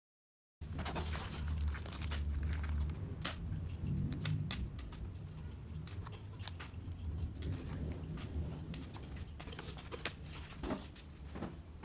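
Hands handling laser-cut MDF kit pieces: many light clicks and taps as the wooden parts are picked out of a cardboard box and set down on a table, with rustling and a low hum. It begins about half a second in, after a moment of silence.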